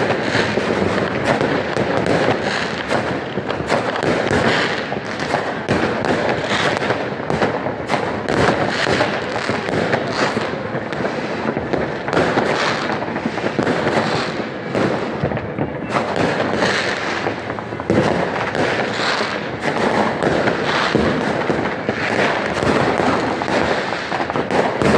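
Fireworks and firecrackers going off all around without a break: a dense, overlapping barrage of bangs and crackling.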